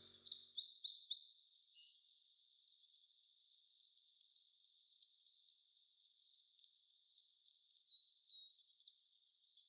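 Faint insect chirping: a steady high pulsing trill, repeating a few times a second, with a few louder chirps in the first second and again near the end.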